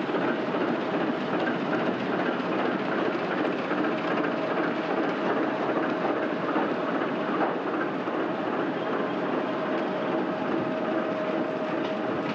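TEM2 diesel shunting locomotive hauling the Soyuz rocket on its rail transporter: a steady rumble of engine and rolling railcar wheels, with a thin steady whine over it.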